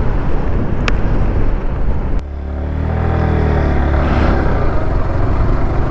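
Motorcycle riding, with wind rumbling on the microphone and a sharp click about a second in. About two seconds in, the motorcycle's engine comes through plainly, its pitch dipping and then rising again.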